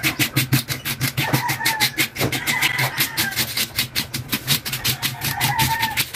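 Rapid scraping of a homemade fish scaler, bottle caps screwed to a wooden handle, raking scales off a fish's skin on a wooden cutting board. It goes as an even, fast rasping at about six strokes a second.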